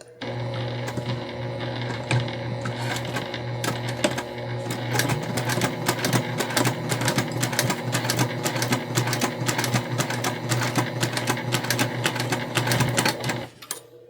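Sewing machine stitching a seam through several thick layers of velvet, zipper tape and webbing: a steady motor hum with a fast, even run of needle clicks, stopping near the end.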